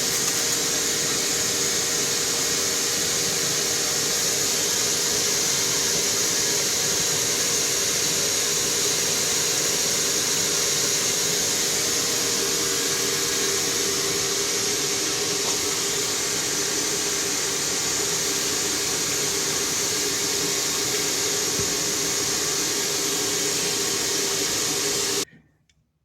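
Wet/dry shop vacuum running steadily with its hose connected to a car's muffler, forcing air through the exhaust to show a leak at a joint sealed with muffler sealer. It is switched off and stops abruptly about a second before the end.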